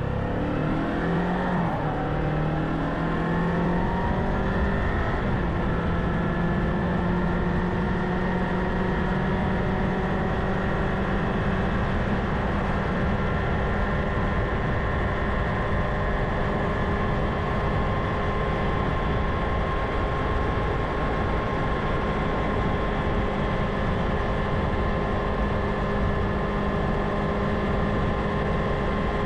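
Kawasaki Ninja 500 parallel-twin motorcycle engine under way: its pitch climbs over the first few seconds as it accelerates, then holds steady at a cruise.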